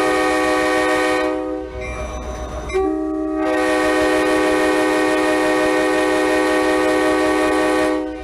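Nathan K5LA five-chime air horn on an Amtrak locomotive sounding two blasts, a chord of several steady tones: one ends about a second and a half in, then a long one starts about three seconds in and is held for about five seconds. A low rumble runs underneath.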